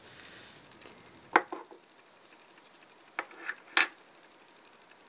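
Handling noises from a small plastic toy figure and a paper collector's sheet: a few sharp clicks and taps, about a second and a half in and again around three to four seconds in.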